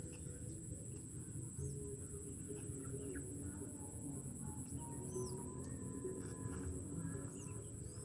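Birds calling outdoors: a few short, falling chirps a couple of seconds apart over a continuous steady high-pitched drone and a low background rumble.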